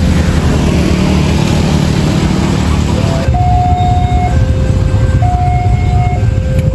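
Road traffic and motorbike engines running, with a dense rumble. About three seconds in this gives way to a railway level-crossing warning alarm: two steady tones alternating high and low, each held about a second, over the low rumble of idling engines.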